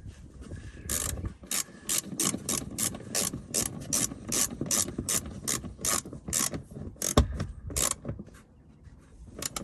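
Ratchet wrench clicking in quick, even strokes, about three or four clicks a second, tightening the fasteners of the plastic under-engine cover. The clicking stops about eight seconds in.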